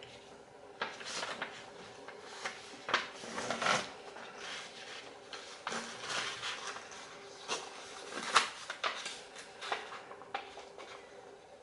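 Sheet of origami paper rustling and crinkling as it is folded and creased by hand, in irregular crackles, the sharpest about three to four seconds in and again about eight seconds in.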